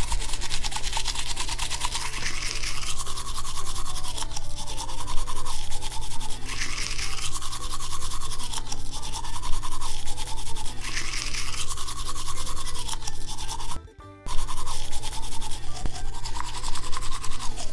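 Toothbrush bristles scrubbing teeth in rapid back-and-forth strokes, steady throughout, with a short break about 14 seconds in.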